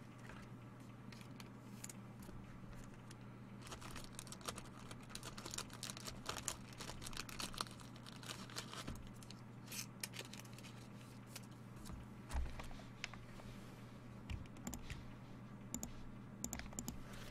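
Faint, irregular clicking of typing on a computer keyboard, densest in the middle of the stretch, over a steady low electrical hum.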